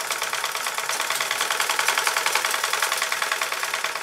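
Treadle-driven sewing machine running fast and stitching fabric: a rapid, even mechanical clatter.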